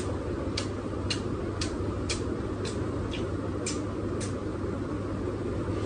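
A quick series of lip smacks from kissing: about nine short, sharp smacks, about two a second, stopping a little past four seconds in, over a steady low room hiss.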